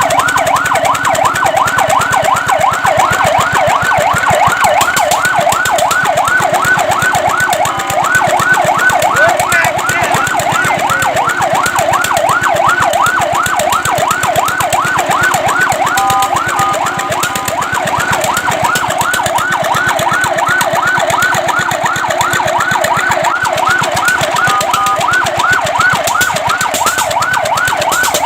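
Electronic fire truck siren in a fast yelp, its pitch sweeping rapidly up and down several times a second. A few times it breaks briefly into short steady two-note tones.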